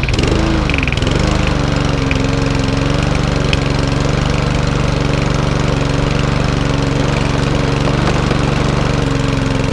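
Four-stroke lawnmower engine of the SV/RV150 type running. Its revs rise and fall during the first second, then it settles into a steady run. The owner takes that brief hunting to be fuel still filling the freshly cleaned carburettor.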